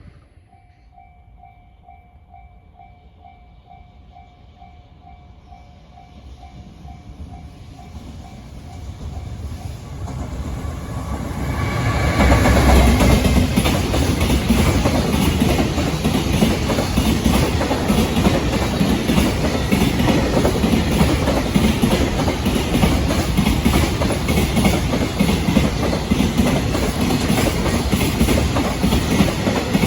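JR Freight train approaching, then passing close from about twelve seconds in with a loud, continuous rumble and rattle of freight wagon wheels on the rails. A faint thin tone sounds during the quieter approach.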